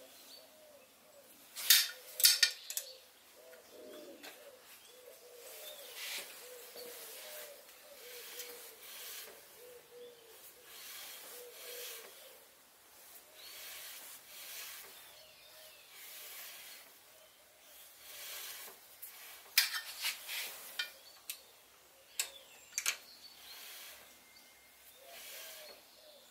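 The carriage of a Sieg SC3 mini lathe is slid by hand along the bed ways, rubbing metal on metal about once a second, as the carriage-lock adjustment strips are set for a snug fit. Sharp metallic clicks from a hex key on the adjustment screws come about two seconds in and again about three-quarters of the way through.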